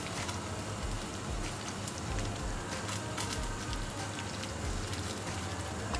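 Chicken, onions and tomatoes frying in hot oil in a wok: a steady sizzle with scattered crackles and pops.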